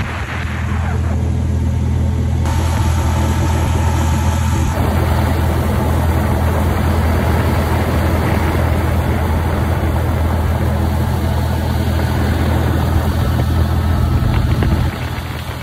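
Boat's outboard motor running steadily under way, a loud low hum that falls off near the end.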